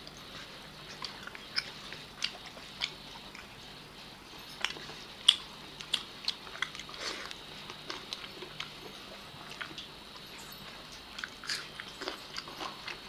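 Close-up eating sounds of two people chewing rice and chicken leg pieces eaten by hand: irregular sharp clicks and chewing, several a second.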